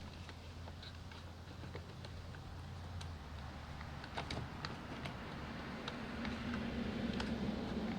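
Faint scattered clicks and taps of small plastic parts being handled as a battery pack is fitted into an RC truck's battery compartment, with a low steady hum underneath.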